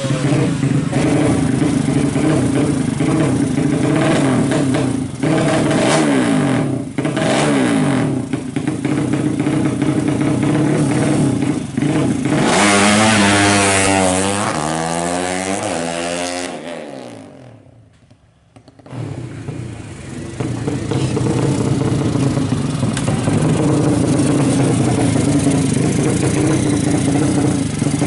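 200cc racing motorcycle engine running hard on track. A louder pass comes about halfway through, its pitch sweeping down as it goes by. The sound drops away briefly a few seconds later, then the engine noise is steady again.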